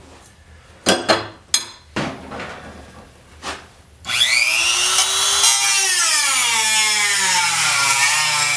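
A few knocks and clicks, then about four seconds in a rotary tool with a small cut-off wheel starts with a rising whine and cuts into the car's sheet-metal floor. Its pitch sinks steadily as the wheel bites into the metal.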